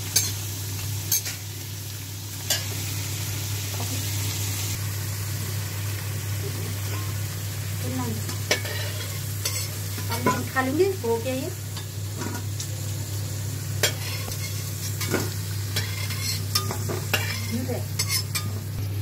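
Potato wedges frying in hot oil in a metal kadhai, a steady sizzle, with a metal spatula clicking and scraping against the pan now and then as they are turned. A steady low hum runs underneath.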